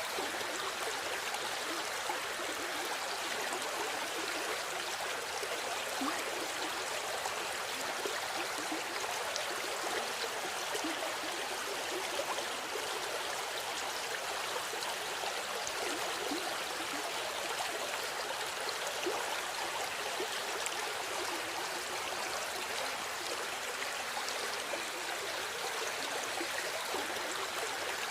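River water flowing steadily over a shallow bed, a continuous rushing with fine gurgles and splashes.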